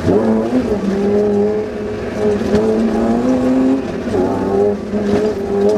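Suzuki Vitara rally car's engine running hard under load, heard from inside the cabin; its pitch climbs slowly, dips about four seconds in, then holds steady.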